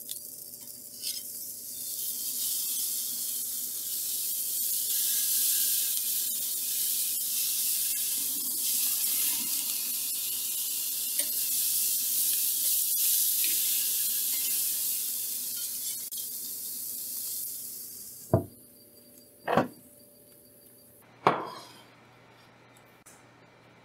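Sauce-glazed Korean BBQ ribs sizzling on a grill grate, a steady high-pitched hiss that fades out about eighteen seconds in. Then three sharp knocks, a second or two apart.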